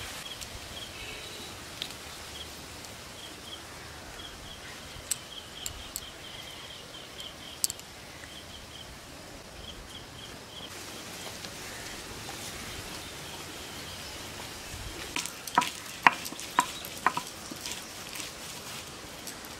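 Outdoor ambience with a steady hiss and a run of short high chirps repeating two or three times a second through the first half. Near the end, a cluster of sharp knocks and clicks of food being prepared by hand.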